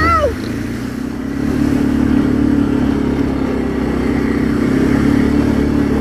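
ATV engine running as the quad is ridden along a dirt trail, splashing through a puddle at the start; the engine picks up again about a second and a half in.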